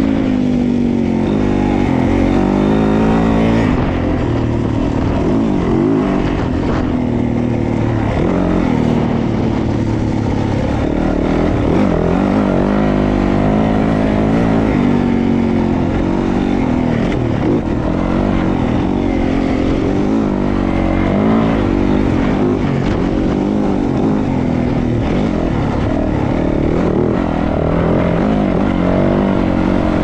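2020 Yamaha YZ450F's single-cylinder four-stroke engine running hard on a dirt-bike ride, its revs rising and falling over and over.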